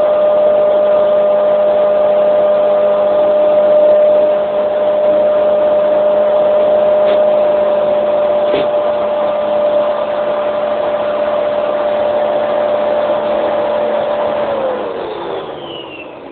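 Upright vacuum cleaner running with a steady, loud motor whine. Near the end it is switched off and the motor spins down, its pitch falling as it fades.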